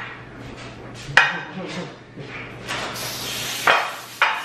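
Aerosol cooking spray hissing briefly for about a second, a little under three seconds in, among a few short sharp sounds.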